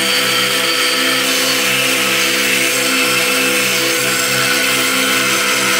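Angle grinder with a thin cut-off disc cutting through steel, running steadily at speed with a loud grinding hiss.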